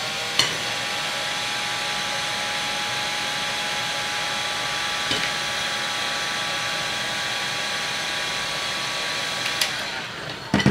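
Electric heat gun running: steady blowing hiss from its fan with a steady whine, heating a fishing-rod line guide to soften the glue that holds it. Near the end it is switched off and winds down, followed by a couple of sharp knocks.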